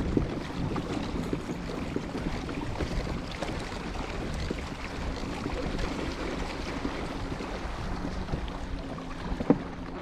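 Wind buffeting the microphone over open water on a small boat, with a faint steady hum coming in later and a single sharp knock near the end.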